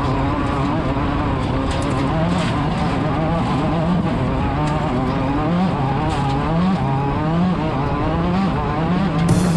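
Class 10 off-road desert race car's engine revving hard, its pitch climbing and dropping again and again as the throttle is worked, the swings coming faster in the second half.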